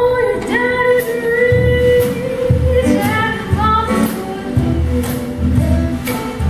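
A woman singing a long held note, then shorter phrases, over an upright double bass plucked in a steady low beat and a strummed acoustic guitar.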